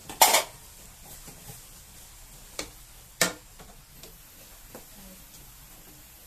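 Cookware being handled: one short clatter about a quarter second in, then two sharp clicks around two and a half and three seconds in, and a few faint ticks.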